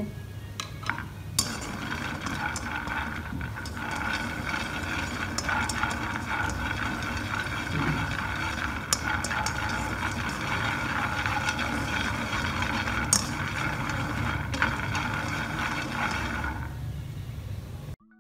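Peanuts roasting in a wok over a gas burner, stirred with long chopsticks: the steady hiss of the gas flame, with the nuts rattling and sharp clicks now and then as the chopsticks knock the pan.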